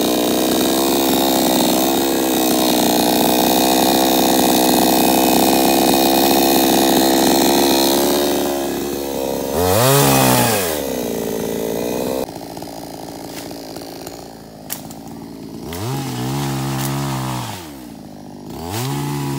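Salem Master gas chainsaw running steadily at high revs, briefly dropping and revving back up about ten seconds in. About twelve seconds in it falls suddenly to a quieter idle, with two short revs near the end.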